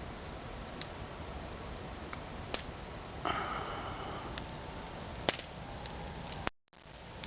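Campfire burning: a steady low rush with scattered sharp crackles and pops from the wood, and a brief hiss about three seconds in. The sound drops out for an instant near the end.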